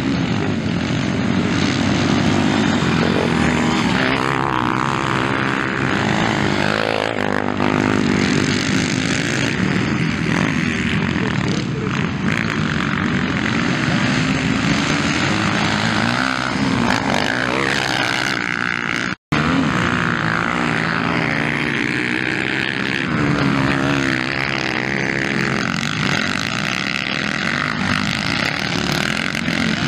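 Dirt bike engines revving on a dirt track, pitch rising and falling as the riders open and close the throttle and change gear. The sound cuts out completely for a split second about two-thirds of the way through.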